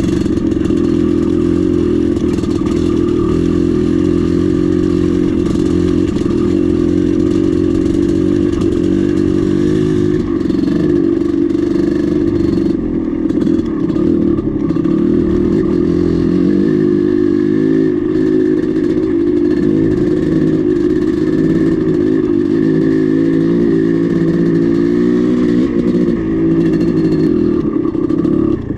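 Dirt bike engine running as the bike is ridden, its note shifting up and down with the throttle.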